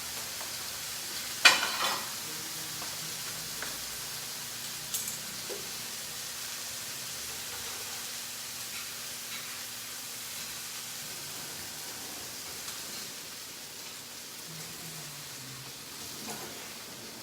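Spiced chicken sizzling steadily in a frying pan, with a sharp clatter of a utensil against the pan about a second and a half in and a few lighter knocks a few seconds later.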